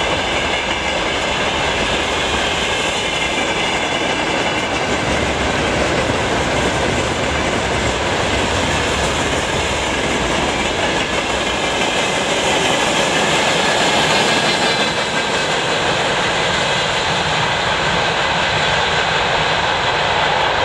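A long freight train's wagons (open wagons, flatcars and tank cars) rolling past at about 60 km/h: a steady loud rumble and clatter of steel wheels on the rails.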